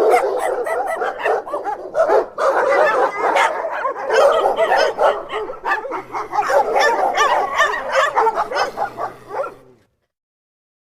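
Dogs barking and yipping in a rapid, dense, overlapping stream, stopping about ten seconds in.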